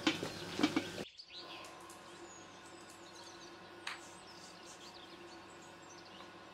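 Knocks and clatter as a metal pan with a wooden spoon in it is handled, cutting off about a second in. Then quieter outdoor background with small birds chirping, and a single sharp tick about four seconds in.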